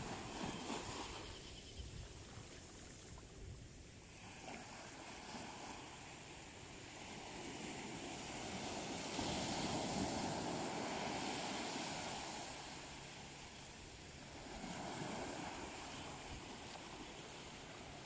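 Small waves breaking and washing up a sandy beach at the water's edge, swelling and fading. The loudest break comes about ten seconds in, with a smaller one a few seconds later.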